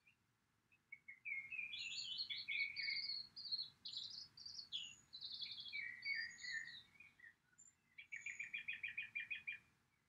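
A songbird singing: several seconds of quick, varied chirped and warbled phrases, then a short pause and a fast, even trill near the end.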